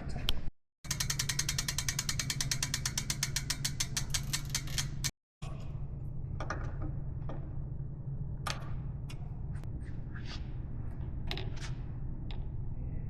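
Fast, even ratchet clicking, about a dozen clicks a second for some four seconds. After a break come scattered light clicks and taps of parts being handled.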